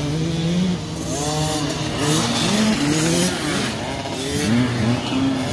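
Several small children's dirt bikes revving as they ride off together, their engine notes overlapping and rising and falling in pitch as each rider opens and closes the throttle and changes gear.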